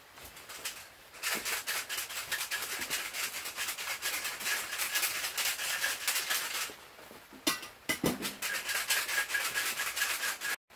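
Steel spade digging into and turning loose, fibrous soil mix in a raised bed: a gritty scraping and rustling of blade through soil, in two long stretches with a short pause and a single knock about seven and a half seconds in.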